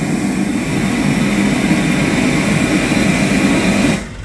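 Test noise (pink noise) played loud through a sound truck's PA speakers during system measurement and frequency tuning: a steady, even hiss-like rush across all pitches that cuts off suddenly about four seconds in. Once the noise stops, the generator engine can be heard running underneath.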